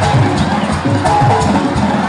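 Live Mexican banda music: trumpets, trombones and tuba playing over a steady drum beat, with some crowd noise.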